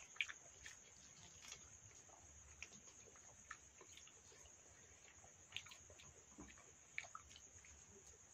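Faint eating sounds: scattered soft clicks and smacks of fingers mixing rice in steel bowls and of chewing, over a steady high chirping of crickets at night.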